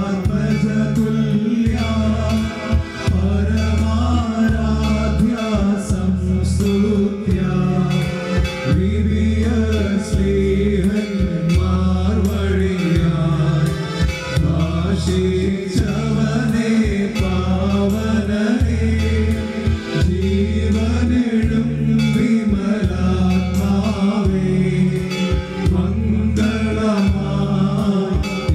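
A Malayalam devotional song: a voice singing over a continuous instrumental backing with heavy, regularly repeating bass chords.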